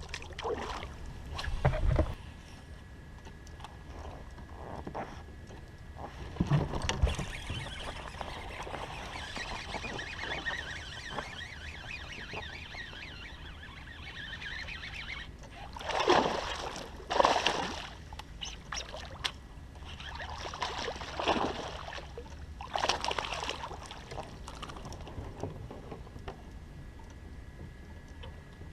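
Water sloshing and splashing around a small fishing boat in several separate bursts, with a hiss in between and a faint steady high whine throughout.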